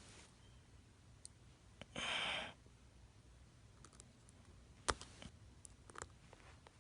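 Faint clicks and taps of small screws and repair tools being handled on an iPhone, with a short breathy exhale about two seconds in and a sharper click a little before five seconds.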